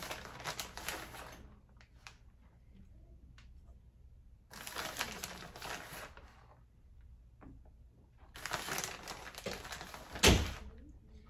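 Packaging crinkling in three spells of a second or two each, as shredded cheese is handled, with a single sharp thump near the end.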